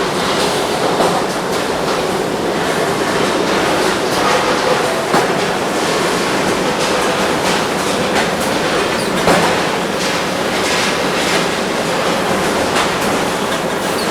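Brass hot-forging presses running in a busy forging shop: a steady mechanical clatter with frequent short metallic knocks and clanks.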